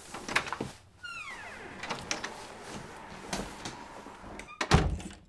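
A house door opening and being shut: latch clicks, a short falling creak about a second in, then the door closing with a heavy thud near the end.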